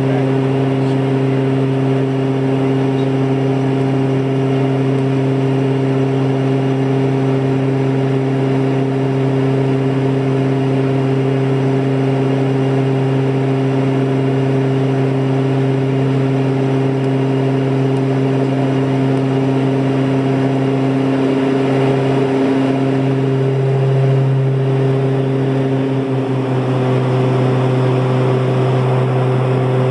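Cabin drone of a Cessna Conquest twin turboprop in cruise: a steady, even hum from its engines and propellers. The pitch wavers briefly about three-quarters of the way through, then settles again.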